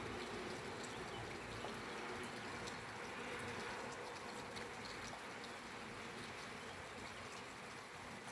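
Steady rain falling, an even hiss with many small scattered drop ticks, slowly easing slightly in level.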